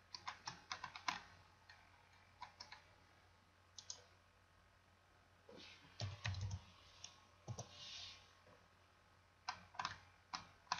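Computer mouse and keyboard clicking in short clusters of quick taps, with a soft low thump about six seconds in.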